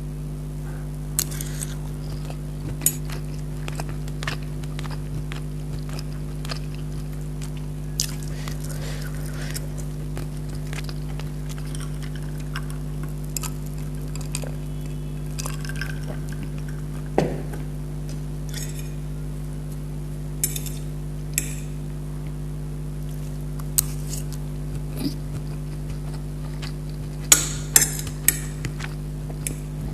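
Spoon and fork clinking and scraping on plates in scattered sharp ticks, with a cluster of them near the end, under a steady low hum.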